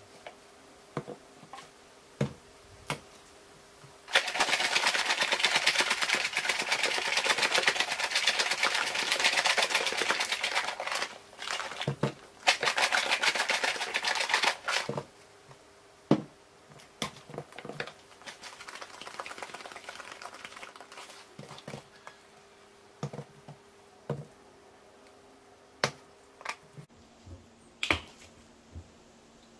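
Spice container shaken hard over a bowl of chicken: a dense, rapid rattle of seasoning for about ten seconds, then scattered clicks and taps as containers are handled.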